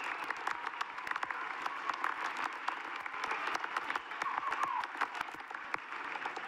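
A large crowd applauding in a big arena: many hands clapping at once in a dense, steady patter, with a few voices calling out over it.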